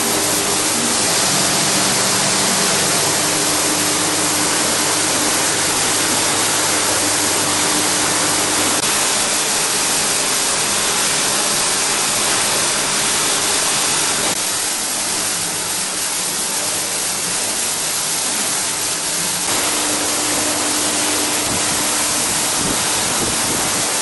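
UTA SD14 high-speed washer assembly machine running, its vibratory bowl feeders rattling masses of small metal screws and washers in a loud, steady, dense hiss, with a faint steady hum underneath. The noise drops slightly about fourteen seconds in.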